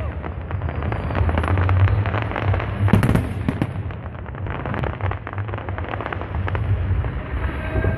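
Aerial fireworks crackling: a dense, rapid run of small pops from a sky full of crackling stars, louder about three seconds in, over a steady low rumble.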